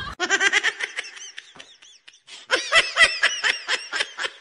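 Laughter: a run of quick 'ha-ha' pulses that fades out after about a second and a half, then a second, louder burst of laughter from about halfway through to the end.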